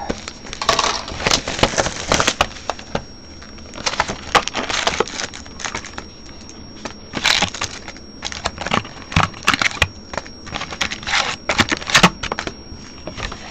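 A cardboard hobby box of Bowman Draft baseball cards being opened and emptied by hand: irregular rustling and crinkling with sharp taps and clicks as the foil-wrapped packs are pulled out.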